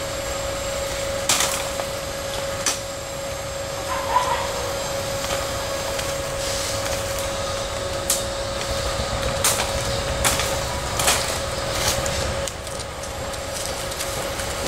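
Irregular sharp clicks and knocks over a steady hum.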